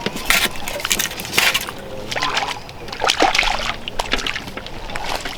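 Water splashing and sloshing in irregular bursts as a small skimmer bream is landed from the lake.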